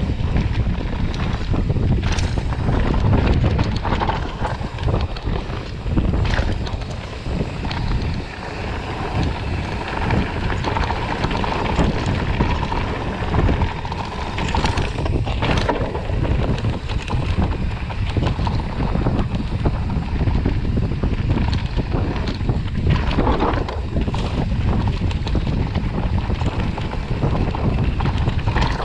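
Wind buffeting the microphone over the rumble of mountain bike tyres rolling on a dirt trail, with occasional knocks and rattles from the bike over bumps.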